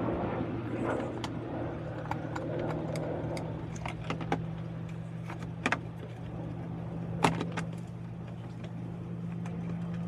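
Scattered sharp clicks and knocks of a tail light assembly being handled and fitted back into place, the loudest about halfway and three quarters through, over a steady low hum.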